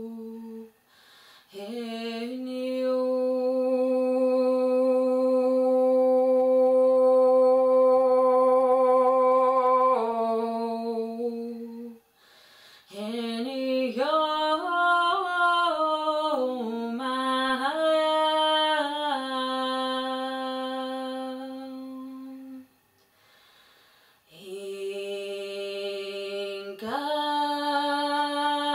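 A woman's voice chanting wordless, sustained tones in a sound-healing invocation: long held notes with short pauses for breath. In the middle comes a run of wavering notes that glide up and down, and near the end the voice steps up to a higher held note.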